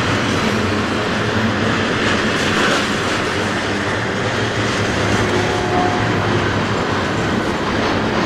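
Double-stack intermodal well cars of a freight train rolling past at close range: a steady, loud rumble and clatter of steel wheels on the rails.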